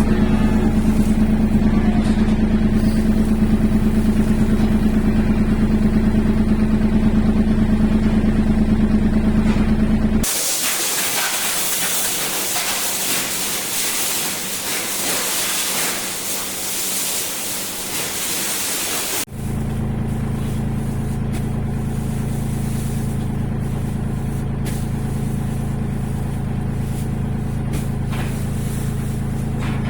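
Farm machinery running steadily: a motor hum, then after a sudden cut about ten seconds in, a loud even hiss for about nine seconds, then another steady motor hum at a lower pitch.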